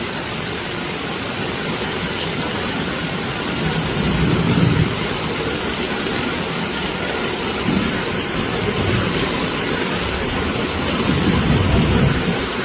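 Heavy rain falling in strong wind, a steady rushing noise with louder low gusts about four seconds in and again near the end.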